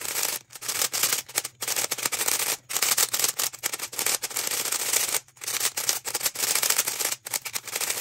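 Plastic pieces of a freshly lubed budget MeiLong 3x3 speed cube clicking and clacking as its layers are turned rapidly by hand, a fast, continuous run of turns broken by a few brief pauses. The cube is being scrambled to work the newly applied lube evenly through it.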